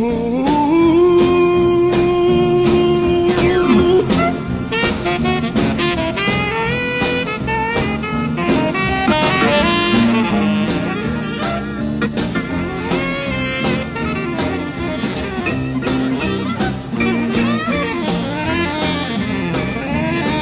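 Background music: an instrumental break in a song, with a lead instrument playing a melody over a band with a steady beat. The lead holds one long note early on.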